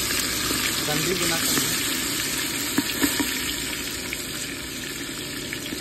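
Hot oil sizzling in a clay handi pot as handfuls of marinated mutton and onion are dropped in. There are a few sharper crackles about three seconds in.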